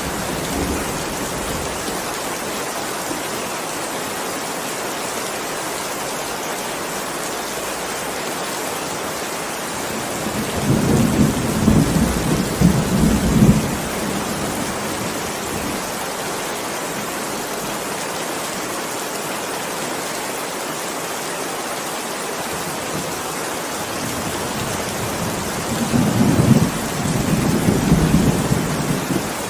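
Heavy rain falling steadily, with thunder rolling twice: a long rumble about ten seconds in and another near the end.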